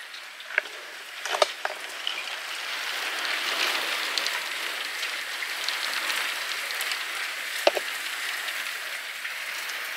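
Heavy rain pouring down, a steady hiss that swells slightly a few seconds in, with a few sharp ticks.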